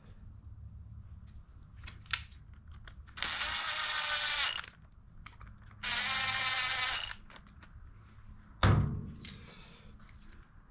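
Two hissing blasts of a compressed-air nozzle, each a second or more long with a wavering whistle, followed by a single sharp thunk of a part set down on the bench.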